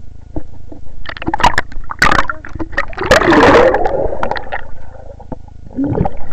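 Water sloshing and gurgling around a camera held underwater in a swimming pool, with sharp knocks and a louder rushing stretch about three seconds in.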